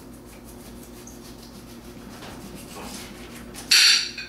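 Copper Knife kitchen knife cutting through a pineapple on a plate, with faint repeated cutting strokes, then a loud brief scrape near the end.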